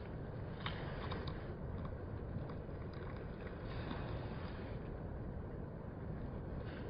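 Ocean surf at low tide: a steady, deep wash of small waves breaking along the shore, with a few faint ticks about a second in.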